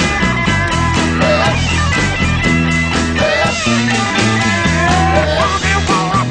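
Rock band playing loudly: electric guitars over a stepping bass line and a steady drum beat, with a wavering lead line on top.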